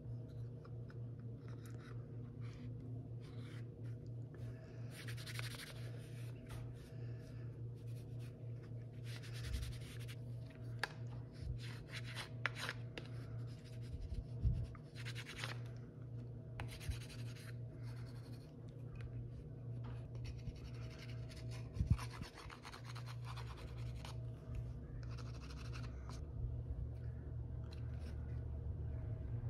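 A hand forming tool rubbing and scraping over a warm, wax-dipped leather knife sheath with the knife inside, in irregular stretches of scratchy strokes: the final forming of the sheath to the knife while the wax is still warm. A couple of sharp knocks stand out, over a steady low hum.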